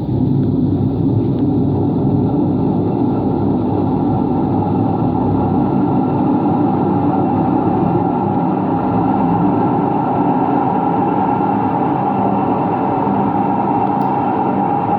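Empty washing machine on its spin cycle, running with a loud, steady, rough noise from bad bearings. The owner thinks both the drum bearings and the motor bearings could be worn.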